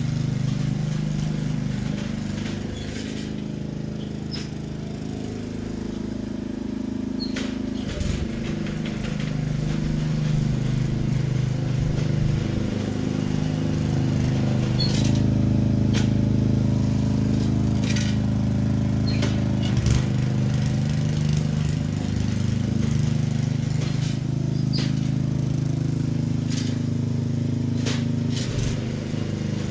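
Engine of a walk-behind core lawn aerator running steadily as it works across the lawn, quieter a few seconds in and louder again from about ten seconds on, with scattered sharp clicks.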